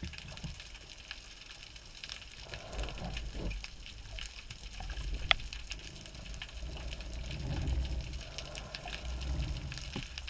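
Underwater ambience in shallow sea water: a low rumble of swell surge that builds and eases, stronger in the second half, with scattered faint clicks and crackles and one sharper click about five seconds in.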